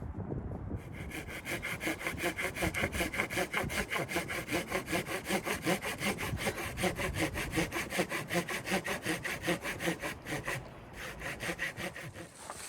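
A hand saw cutting wood in quick, even rasping strokes, about five a second, which thin out and turn irregular near the end.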